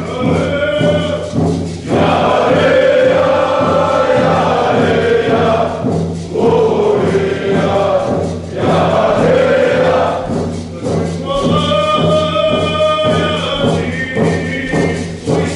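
A group of voices singing together: a slow, chant-like song in long held phrases, with short pauses between them.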